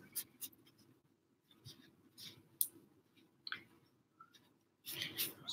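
A few faint, irregular clicks and taps of hands handling things on a kitchen countertop, with a louder rustle near the end.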